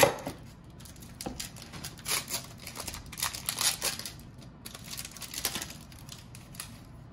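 Foil wrapper of a trading-card pack crinkling and rustling in irregular bursts as it is torn open and the cards are worked out, after a sharp knock right at the start.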